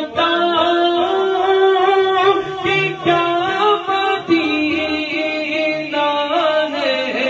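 A man singing an Urdu naat into a handheld microphone, holding long notes and bending them in ornamented runs between the words.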